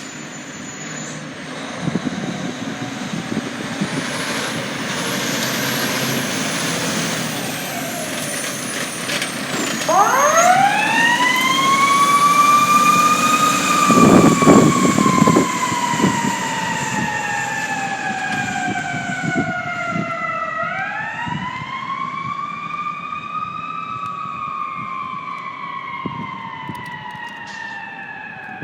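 Fire truck's mechanical siren winding up, slowly winding down, then winding up and down a second time, over the rumble of the ladder truck's engine as it responds.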